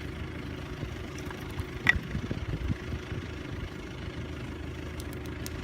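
Campfire burning with scattered crackles and one sharp pop about two seconds in, over a steady low hum.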